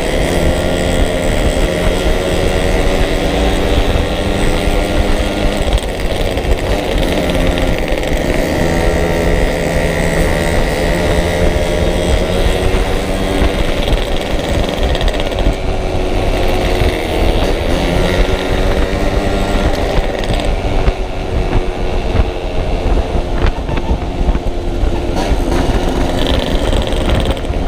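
Yamaha RX-King's two-stroke single-cylinder engine running under way, its revs rising and falling as the rider opens and eases the throttle, with wind buffeting the microphone.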